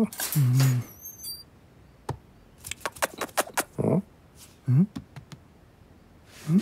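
A pet carrier's metal wire door being unlatched and opened: a quick run of small metallic clicks and rattles. Short, low voiced murmurs come before and between the clicks.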